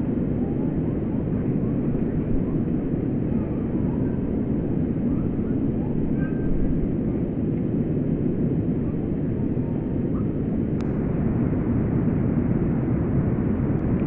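A steady low rumble runs throughout, with faint, brief small-bird chirps above it and a single sharp click near the end.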